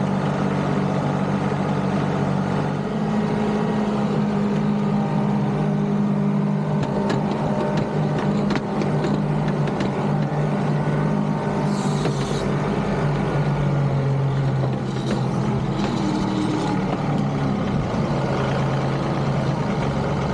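Compact tractor's three-cylinder diesel engine running steadily, its pitch shifting a few times as the load or throttle changes.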